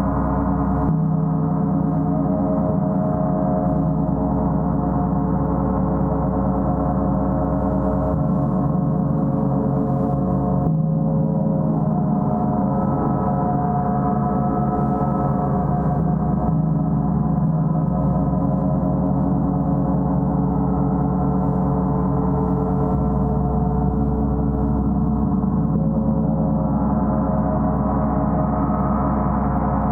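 Gong played continuously, a sustained wash of many overlapping ringing tones at a steady level, the mix of tones shifting every few seconds.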